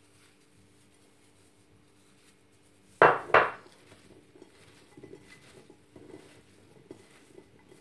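Two sharp knocks in quick succession about three seconds in, a small bowl set down on the kitchen worktop, followed by faint soft clatters of gloved hands tossing cubed raw beetroot on a plate.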